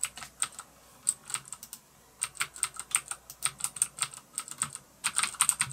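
Clicky Cherry MX Blue key switches of a Cooler Master CM Storm Trigger Z mechanical keyboard clicking as keys are pressed one by one. The keystrokes come a few a second at first, grow more frequent, and pick up into fast typing near the end.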